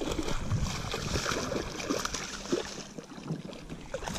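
A hooked bass splashing at the water's surface as it is fought and reeled in to the boat, with irregular small splashes and ticks.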